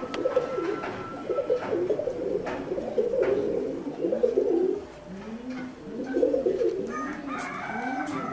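Several fancy pigeons cooing, their repeated rising-and-falling coos overlapping one another. A thin, steady higher note sounds briefly near the start and again near the end, and a few sharp clicks come in between.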